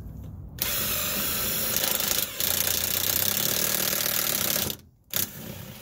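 Power driver sinking a self-drilling screw into the steel chassis frame: a loud, steady whir that starts about half a second in, dips briefly near the middle and stops about a second before the end, followed by one short final burst.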